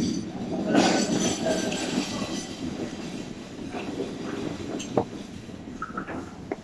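Restaurant dining-room din: a steady hubbub of background noise and indistinct voices, louder in the first second or two, with a couple of sharp clinks of tableware, about five seconds in and near the end.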